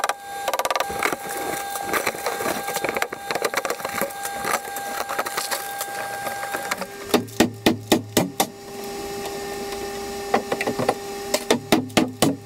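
Pry bar scraping and breaking away plaster and plasterboard, with crumbling and tearing, then a quick run of sharp knocks about seven seconds in and another near the end as the bar is struck and levered against the wall framing.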